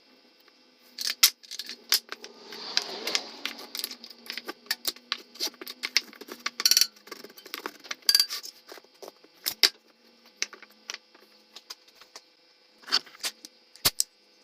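Irregular clatter of small hand tools and wooden frame parts being handled: a quick, uneven run of sharp clicks and knocks, some with a short metallic ring.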